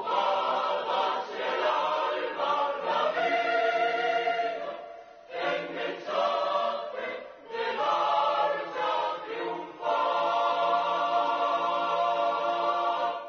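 Choral music: many voices singing long held chords, with two short breaks between phrases about five and seven and a half seconds in.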